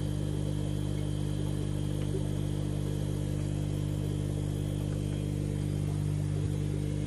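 Steady low hum with several held tones from the running equipment of a fish room full of aquariums.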